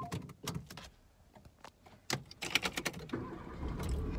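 A run of small clicks, knocks and rattles from handling things inside a car, densest in the middle. Near the end a car engine starts and settles into a steady low running hum.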